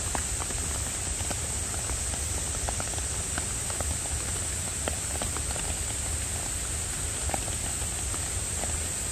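Rain dripping and pattering on a wet wooden deck and surrounding trees, with scattered drops ticking irregularly over a steady high hiss and a low rumble.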